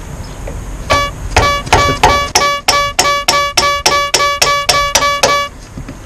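A rubber mallet striking the end of a 14 mm steel ring spanner about sixteen times, roughly three blows a second, the spanner ringing with a clear tone at each blow. The blows are knocking loose the mounting bolt of a Suzuki Bandit's front brake caliper.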